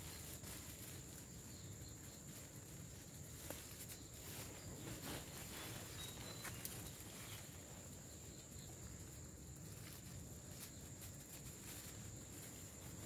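Insects droning steadily at a high pitch, with scattered soft clicks and rustles of leaves and plastic fruit bags being handled, most of them between about 3 and 7 seconds in.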